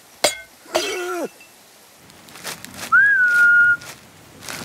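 A single whistled note that rises and then holds steady for under a second, about three seconds in; earlier a short vocal cry falls in pitch.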